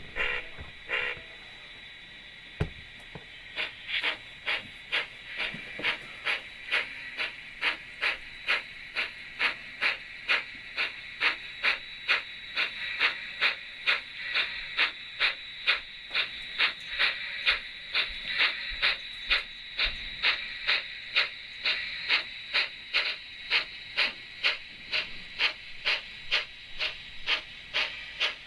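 SoundTraxx Tsunami sound decoder playing steam locomotive sounds through a small speaker in the smokebox of a model D&RGW C-16. It starts as a steady steam hiss; a few seconds in, even exhaust chuffs begin at about two a second and keep going as the model runs.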